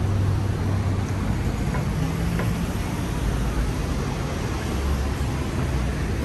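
Steady low rumble of vehicle noise with a hiss over it, and a couple of faint clicks about two seconds in.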